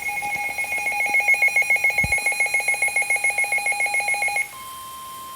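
Midland WR-400 weather radio's alert sounding for a severe thunderstorm warning: a shrill tone that breaks into rapid beeping and stops suddenly about four and a half seconds in. A quieter steady 1050 Hz NOAA Weather Radio warning alarm tone follows from the speaker.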